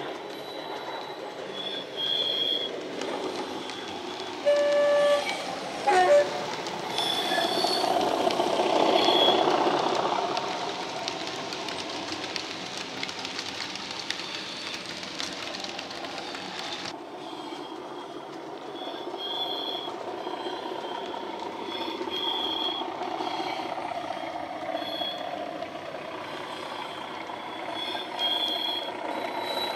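Recorded English Electric Class 37 diesel sound played by a model locomotive's DCC sound decoder through its small speaker: the engine runs steadily while the model train rolls along the track. Two short horn notes sound about four and a half and six seconds in, and the engine note swells from about seven to ten seconds in.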